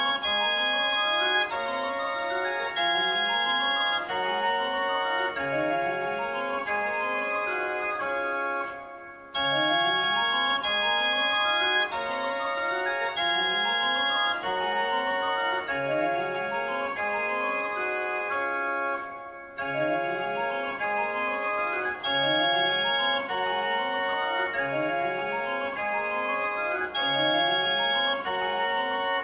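Pipe organ playing a piece of held chords over quick rising runs of notes in the bass, in three similar phrases with short breaks about nine and nineteen seconds in.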